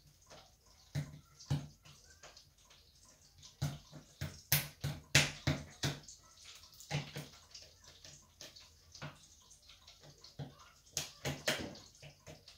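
Irregular clicks and knocks of kitchen work at a counter, coming in clusters, loudest about four to six seconds in and again near the end, over a faint steady hiss.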